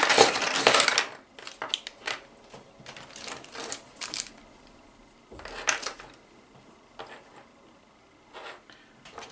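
Plastic bag rustling and black plastic robot wheels and sprocket hubs clattering out of it onto a work mat, loudest in the first second. Then scattered clicks and knocks as the plastic parts are picked up and spread out, with a small burst about halfway.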